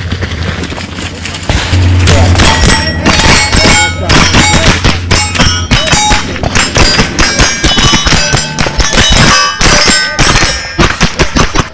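Rapid rifle fire from several AR-style rifles at once, the shots overlapping, with steel targets clanging and ringing as they are hit. The shooting starts about a second and a half in, after a quieter stretch.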